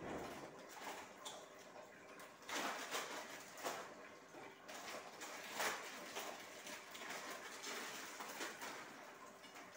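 Faint clatter and rustle of hands working at a kitchen counter, handling a small bottle and utensils, in uneven bursts with the loudest a few seconds in.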